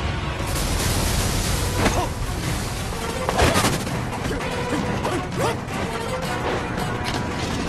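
Action soundtrack: music mixed with crashes and booms, with sharp impacts about two seconds in and again around three and a half seconds in.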